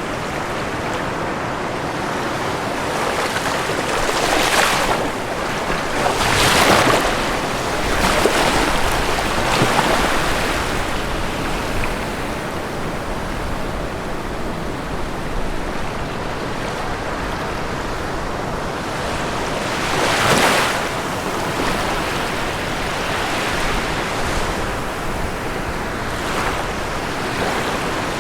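Ocean surf washing onto a shore: a steady wash of water with louder waves breaking, a cluster between about four and ten seconds in and another about twenty seconds in.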